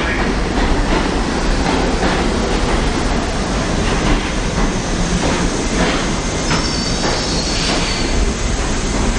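R32 subway train running on the rails with a steady rumble and irregular wheel clicks. About two-thirds of the way in, a thin, high wheel squeal lasts a second or so.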